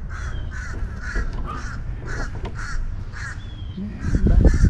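A bird calling repeatedly in harsh, caw-like notes, about two calls a second, over low rumbling noise that grows louder near the end.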